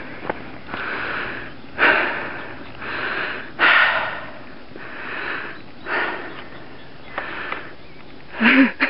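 A person breathing hard while running, in heavy breaths about once a second, with a louder gasp near the end.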